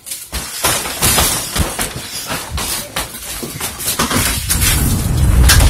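Clattering knocks and thumps of hurried footsteps and a jostled handheld camera, dense and irregular, with a low rumbling buffeting that builds about two-thirds of the way through.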